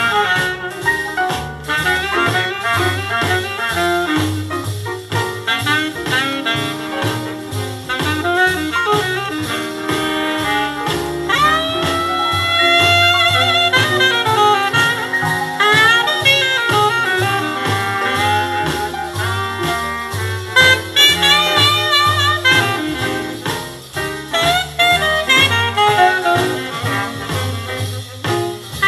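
A swing-jazz record with saxophones and brass playing on a vintage Elac Miracord 50H II turntable, over a steady beat.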